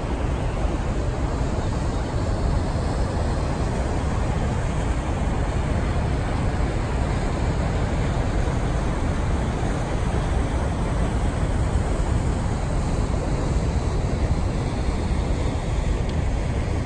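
Steady rushing of the Niagara River's whitewater rapids and the Horseshoe Falls pouring over the brink: an even, unbroken noise, heaviest in the low end.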